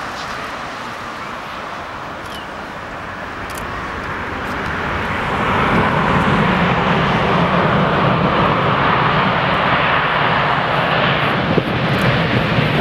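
Airbus A350-900's Rolls-Royce Trent XWB turbofan engines running as the airliner rolls out on the runway after landing. The engine noise grows louder from about four seconds in, then holds steady.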